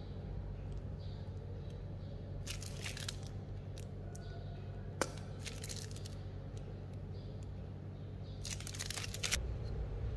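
Plastic piping bag crinkling in three short bursts as it is squeezed to pipe choux dough, with one sharp click near the middle, over a steady low hum.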